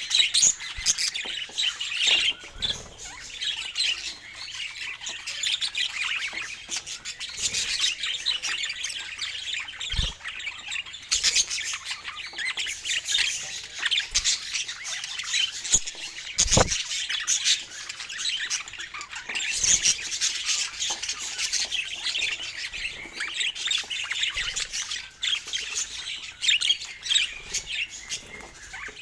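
Budgerigars chattering continuously, a dense mix of warbles, chirps and squawks. There are two short low thumps, about ten seconds in and again about six seconds later.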